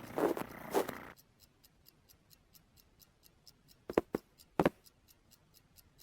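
Fast, even ticking, about five ticks a second, with two louder sharp clicks a little past the middle. A noisy rustling sound before it cuts off abruptly about a second in.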